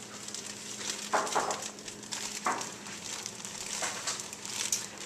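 Plastic bread bag crinkling in several short rustles as it is opened and slices of bread are taken out.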